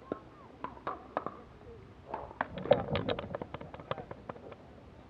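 Sharp clicks typical of pickleball paddles hitting the plastic ball, a few spaced hits at first, then a quick dense run of clicks and knocks lasting about two seconds.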